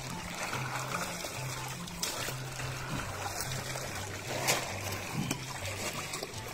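Seawater sloshing and trickling as a plastic bag is dipped into the sea and lifted out, water pouring from it, with a few short splashes, the loudest about four and a half seconds in.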